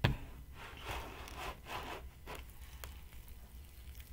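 A thump as the plastic tub is set down, then slime being handled and pulled up out of the tub, with a handful of short rubbing, rustling noises over the next two seconds.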